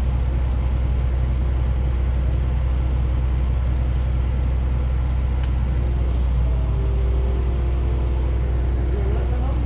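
A heavy engine running steadily, a low even rumble with no change in pace, with faint distant voices in the last few seconds.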